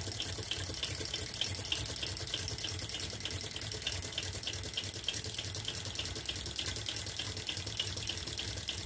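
Large Tarot Stirling engine running steadily while belt-driving a vintage Empire water pump, the pumped water pouring back into the pump's base. Steady running-water sound with a fast, even rhythm of light ticks from the running machinery.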